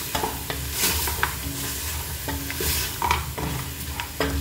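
Mutton pieces sizzling as they fry in butter in a pressure cooker, with a spatula stirring and scraping against the pot several times.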